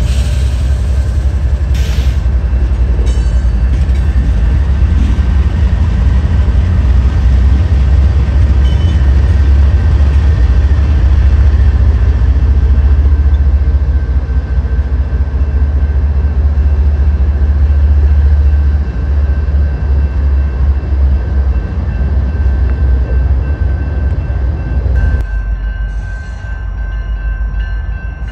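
Two CSX GE ES44AH diesel locomotives running close by as a long freight train backs across a grade crossing, a heavy deep engine sound with a steady high ring over it. About 25 seconds in, the engine sound drops away.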